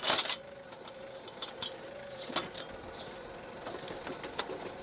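A John Deere 2038R compact tractor running steadily while working its backhoe, with several sharp knocks: the loudest right at the start, another about two and a half seconds in.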